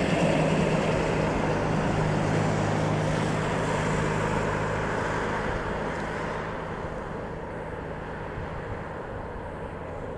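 Bombardier Challenger 601 business jet's twin rear-mounted General Electric CF34 turbofans running steadily during a low pass over the runway, with a low drone under a broad rushing hiss. The jet fades steadily as it moves away, its hiss thinning out after about six seconds.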